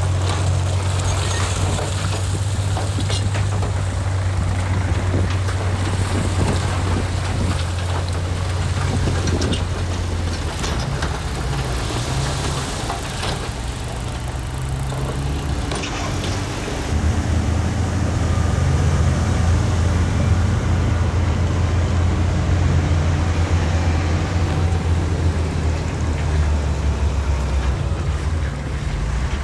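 Heavy diesel earthmoving machinery running under load. The engine eases off about ten seconds in and works hard again from about seventeen seconds, with scattered clicking and rattling in the first half.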